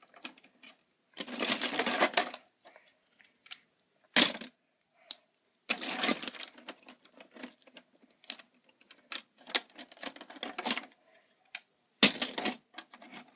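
Plastic Lego bricks clattering and clicking as they are handled and built with: irregular bursts of rattling, loudest about a second in, around the middle and near the end, with scattered single clicks between.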